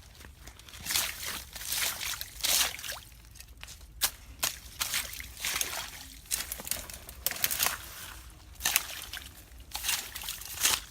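Water splashing and sloshing in a string of irregular bursts, one or two a second.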